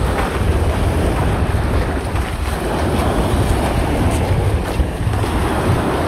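Wind buffeting the microphone in a heavy, uneven low rumble, over the steady wash of small waves breaking on a sandy beach.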